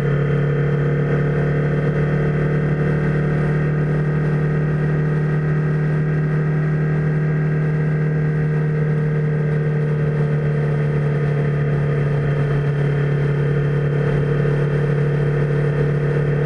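Motorcycle engine running steadily at motorway cruising speed, a constant unchanging drone, as picked up by a Garmin VIRB Ultra 30 action camera's microphone mounted on the bike.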